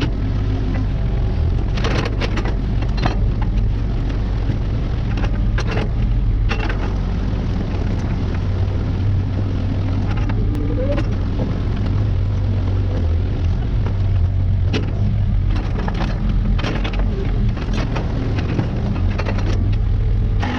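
Diesel engine of a compact excavator or skid steer running steadily under load while working mud, with scattered clanks and knocks and a brief rising whine about halfway through.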